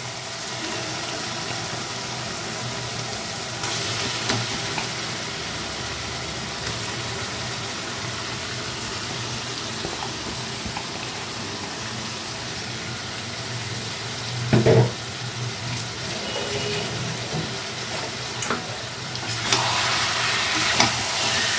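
Marinated chicken pieces sizzling and frying in hot oil and masala paste in a kadai while being stirred; the sizzle swells louder near the end. A brief knock, the loudest moment, comes about two-thirds of the way through.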